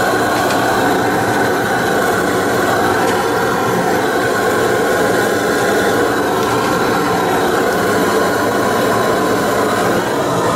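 Steady engine drone, even in level, with no break or change in pitch.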